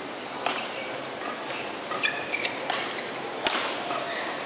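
Badminton rally: rackets striking a shuttlecock in sharp cracks, about four times, the loudest about three and a half seconds in. Between hits come short squeaks of shoes on the court mat.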